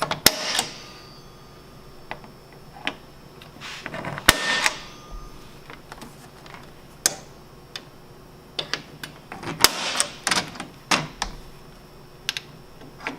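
Center punch knocking dimples into the marked drill spots on the snowmobile's bumper and tunnel: a dozen or so sharp metallic clicks and taps at uneven intervals, some with a brief ring.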